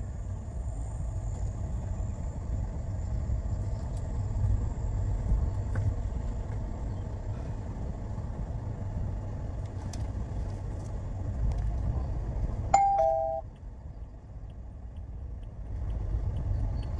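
Low engine and road rumble inside a moving car's cabin. About 13 seconds in, a two-note electronic chime sounds, the second note lower, and the rumble drops for a moment afterwards.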